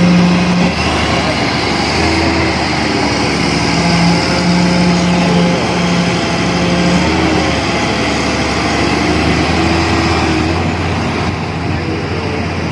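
Hitachi hydraulic excavator's diesel engine running steadily under load as it works the soil, with a humming tone that comes and goes several times over the engine drone.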